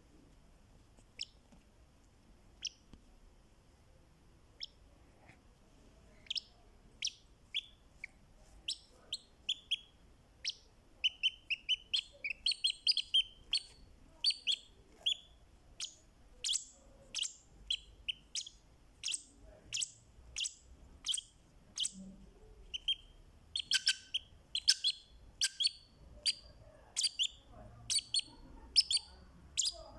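Fischer's lovebird giving short, sharp, high chirps, a few scattered ones at first, then a rapid run of about two a second from around ten seconds in.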